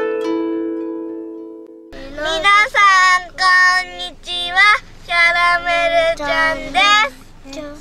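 Plucked-string music, its last notes ringing out and fading over the first two seconds; then a young child singing in a high voice, in short held phrases that bend up and down in pitch.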